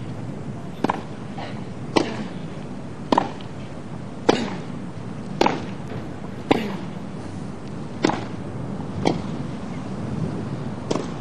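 Tennis racquets striking the ball back and forth in a baseline rally, about ten sharp hits roughly a second apart.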